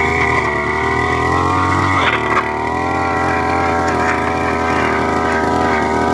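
Brush cutter engine running with a weeding blade fitted, its pitch wavering a little with load, with a short change in tone about two seconds in.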